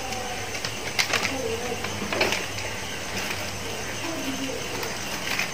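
Sliced onions frying in hot oil in a large pot, sizzling steadily, with a couple of sharper crackles about one and two seconds in.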